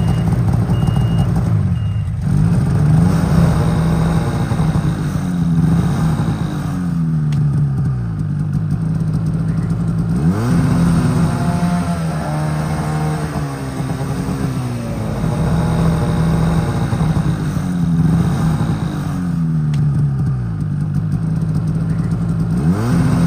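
Snowmobile engine running and revved repeatedly, its pitch rising quickly then sliding back down several times.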